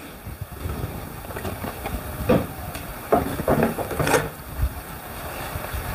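A plywood panel with thin wood planks glued on is lifted, flipped over and set down on a plastic folding table: wood scraping and rustling, with several knocks through the middle.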